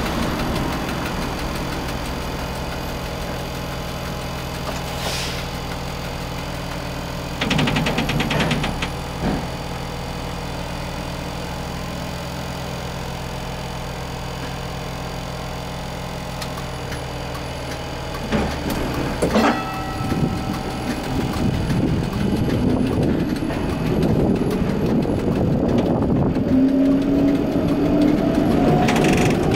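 1960 Standard streetcar heard from inside the driver's cab: it stands with a steady electrical hum and a brief rattle, then a few clunks about two-thirds of the way in, and the traction motors start a rising whine as the tram pulls away and gathers speed.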